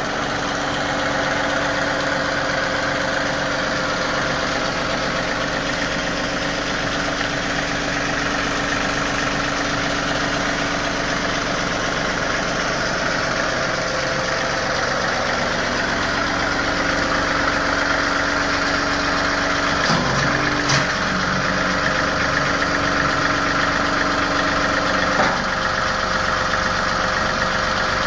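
John Deere compact tractor's diesel engine running steadily at idle. Its tone shifts a little partway through, with a couple of light knocks about two-thirds of the way in and near the end.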